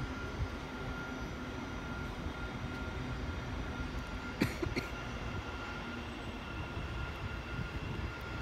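Railway station ambience: a steady low rumble with a constant electric whine, and two sharp clicks a little past halfway.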